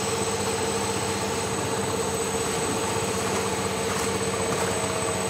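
600 mm air bubble film making machine running steadily, a continuous mechanical hum with a steady high whine over it.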